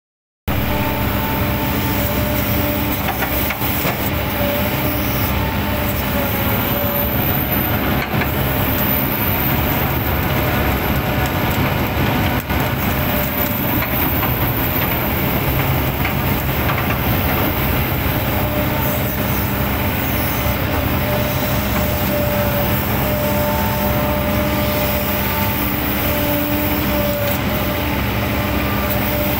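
A 20-tonne-class hydraulic excavator's diesel engine and hydraulics running steadily under load while the boom and bucket work, heard from the cab: a constant heavy rumble with a few steady tones that fade in and out.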